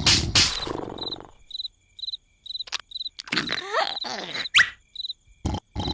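Cartoon night ambience of crickets chirping evenly, about two chirps a second. A snore fades out in the first second, and a few short squeaky vocal sounds and sharp thumps come in the middle and near the end.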